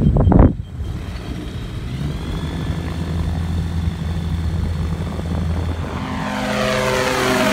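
American Ranger gyroplane's engine and pusher propeller running steadily as it taxis and rolls down the runway, rising to takeoff power about six seconds in and getting louder toward the end. A few brief loud thumps right at the start.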